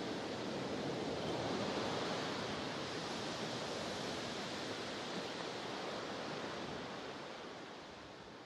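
Sea water washing against the harbour pier, a steady rushing hiss that swells a little early and grows softer from about seven seconds in.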